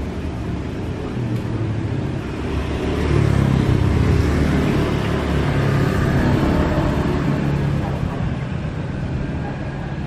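Low rumble of a motor vehicle going by. It grows louder about three seconds in and fades again after about eight seconds.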